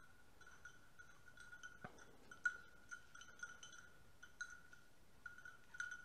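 A hunting dog's collar bell clinking faintly and irregularly as a setter moves through the cover, with one short knock a little before two seconds in.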